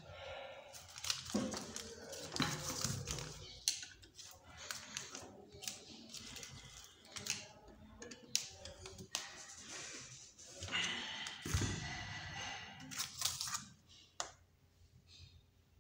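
Workbench handling sounds of a mixer's universal motor being assembled: irregular metallic clicks and scrapes of a screwdriver and metal motor parts, with newspaper rustling under them. A denser stretch of scraping comes about two-thirds of the way through, and it quietens near the end.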